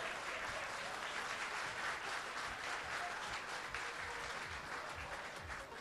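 Audience applauding, the clapping fading toward the end.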